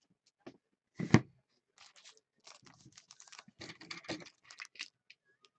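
Foil wrapper of a trading-card pack crinkling and tearing as it is opened by hand, with a sharper knock about a second in.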